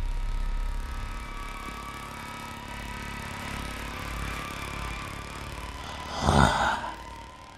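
Eerie sustained drone of several held high tones from a horror film score, with one sudden loud hit about six seconds in.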